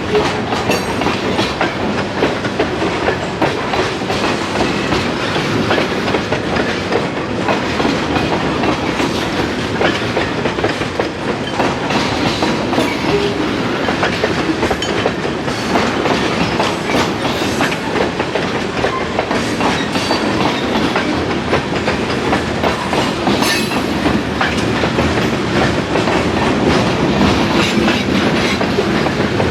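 Freight train cars rolling past, their steel wheels clattering over the rail joints in a steady run of clicks and clanks.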